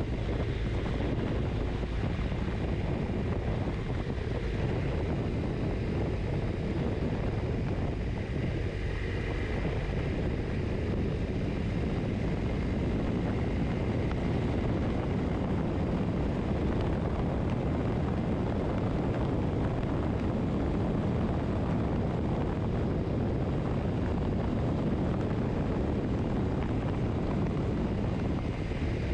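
Steady wind noise on the microphone over the low rumble of a motorcycle cruising at an even road speed.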